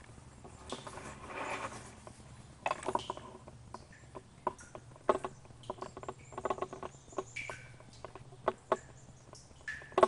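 Irregular clicks, taps and scuffs, sharp and uneven, over a faint steady low hum.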